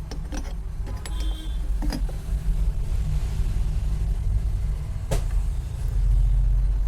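Steady low rumble of road traffic, with a few sharp clicks scattered through it.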